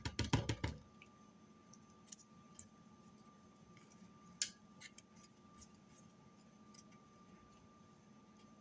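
A quick run of light clicks and knocks in the first second, then a few faint scattered ticks, from hands and utensils at work over a pizza being sauced, with a faint steady hum underneath.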